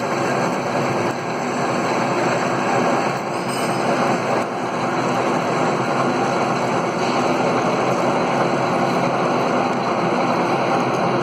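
Lathe machine running steadily, a continuous mechanical hum and rumble with a faint steady whine.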